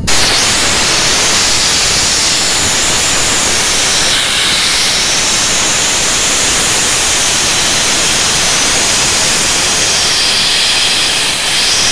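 Small steam locomotive's safety valve lifting and blowing off excess boiler pressure: a loud, steady hiss of escaping steam that starts suddenly and cuts off suddenly about twelve seconds later.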